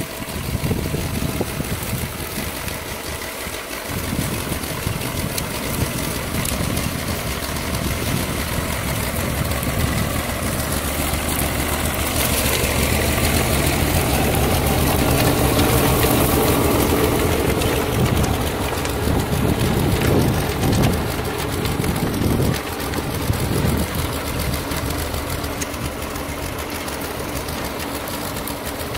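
Ford 3000 tractor's three-cylinder engine running steadily under load while driving a rotary tiller whose tines churn through soil and old corn stalks. The sound gets louder and noisier through the middle as the tiller passes close.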